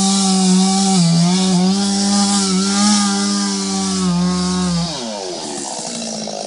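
Petrol chainsaw running at high revs while cutting tree roots in the soil of a trench, the engine note dipping briefly under load a few times. About five seconds in, the throttle is released and the engine drops to a quieter, lower idle.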